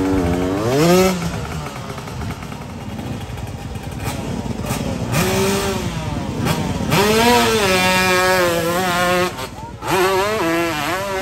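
125cc dirt bike engine revving hard on a hillclimb, its pitch sweeping up and falling back again and again as the rider works the throttle up the slope. There is a sudden brief drop near the end.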